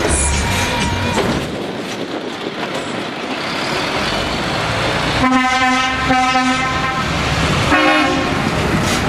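Lorry air horns blasting over the engine noise of trucks driving off: two long blasts back to back around the middle, and a shorter one near the end. Diesel engines of passing trucks run underneath.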